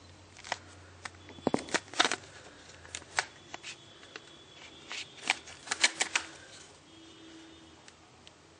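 Karbonn A15 smartphone handled in the hands: irregular sharp plastic clicks and light rattles as the phone is turned over and its back and edges are worked, bunched around the second second and again in the middle.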